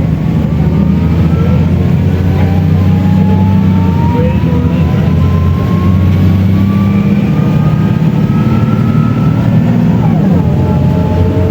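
Mercedes-Benz O500U city bus engine and ZF automatic gearbox under acceleration, with a whine that rises steadily in pitch. About ten seconds in, the gearbox shifts up and the pitch drops, then starts climbing again.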